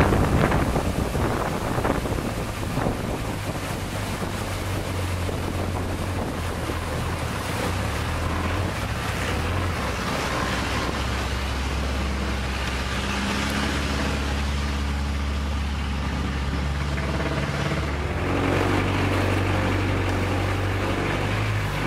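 Engine of a Thai long-tail canal boat running steadily under way, heard from on board, with water splashing along the hull. The engine note drops about halfway through and rises again near the end.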